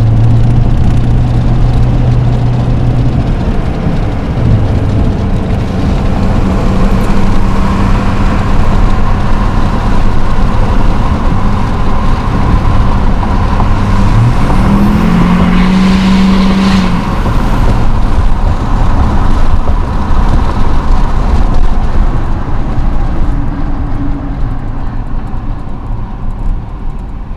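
2004 LLY Duramax 6.6 L turbo-diesel V8 with a 4-inch MBRP turbo-back exhaust, running under load while driving. Its note steps up in pitch a few seconds in and climbs again about halfway through, then the sound eases off near the end.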